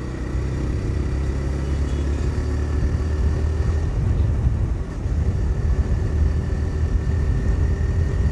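TVS Raider 125's single-cylinder engine running as the motorcycle accelerates to about 60 km/h, with wind rushing over the microphone.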